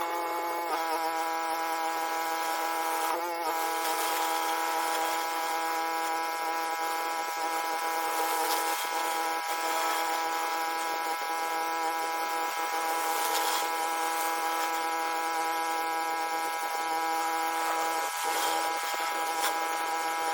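Pressure washer running with a rotary surface cleaner on sandstone paving: a steady mechanical whine over the hiss of water spray.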